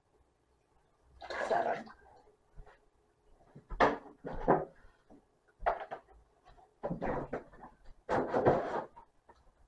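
Kitchen handling sounds: a string of separate knocks and clatters as a plastic milk jug and measuring cup are put down and a refrigerator door is opened.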